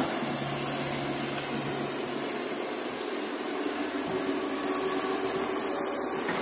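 Komatsu hydraulic excavator's diesel engine running steadily, a droning hum under a steady hiss.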